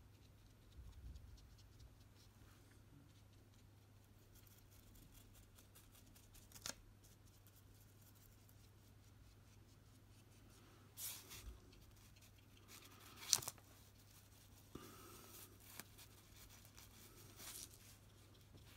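Near silence with a faint steady low hum, broken by a few brief small taps and scrapes of painting work: a fine brush dabbing dots of acrylic paint on paper and being handled at the palette. The loudest tap comes about two-thirds of the way through.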